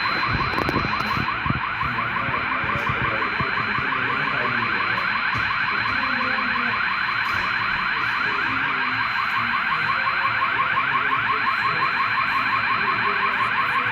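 Hotel fire alarm sounding continuously: a rapidly repeating rising sweep tone with a steady high tone above it.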